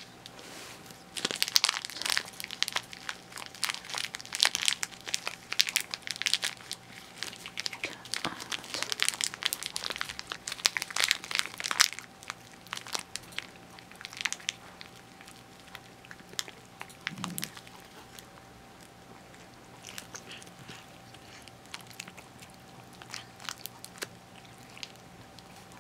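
A cat biting and crunching a dry carrot-cheese stick treat held in a plastic bag, the bag crinkling as it tugs. The crunching is dense for about the first twelve seconds, then turns to scattered bites and crinkles.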